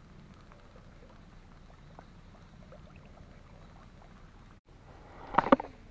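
A short splash of water about five seconds in, several quick strokes together over a faint steady hiss.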